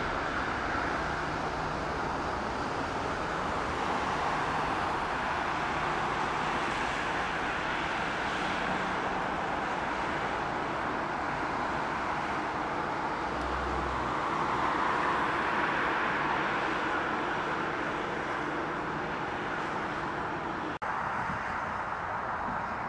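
Jet airliner engines at takeoff thrust, heard from a distance as a steady rushing noise that swells slightly midway, with a brief dropout near the end.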